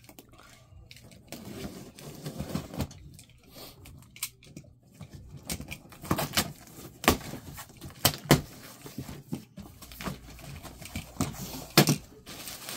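Heavy plastic wrap crinkling and tearing and a cardboard box being handled as a strapped, shrink-wrapped carton is cut open. Several sharp snaps stand out in the second half.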